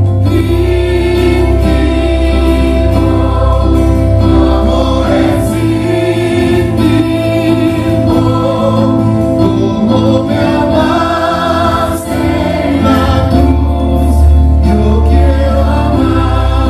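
A choir of mostly women's voices singing a hymn, with held low notes from a keyboard underneath.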